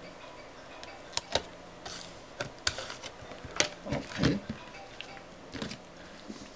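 Irregular clicks and light taps from handling an LCD panel with aluminium foil on its edge as it is pressed, turned over and set down.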